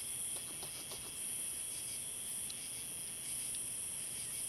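Steady chorus of crickets and other night insects: a continuous high, shrill chirring that swells and eases every second or so.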